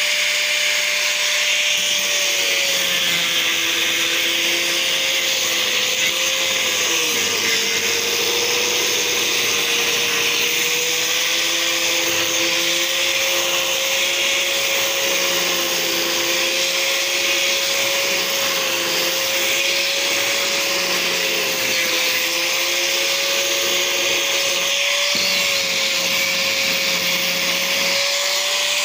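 Electric angle grinder running continuously with its disc worked over a wooden plank to grind the surface flat. Its motor whine sags and wobbles in pitch as the disc bears on the wood, over a steady hiss of abrading wood.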